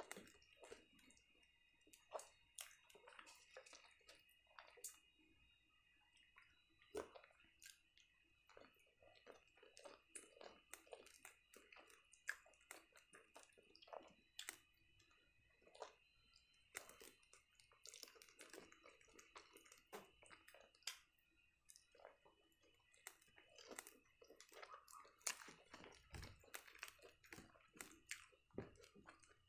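Faint, close-miked chewing of a black-bun burger: many small wet mouth clicks and soft crunches, with bites taken into the burger.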